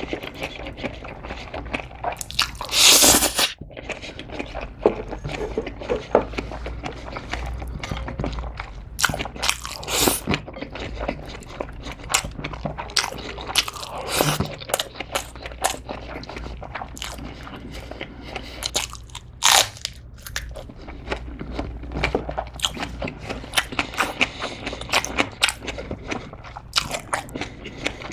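Close-miked eating sounds of spicy mixed noodles with vegetables: a loud slurp of noodles about three seconds in, then steady wet chewing with many small crunches and clicks, broken by a few more short slurps.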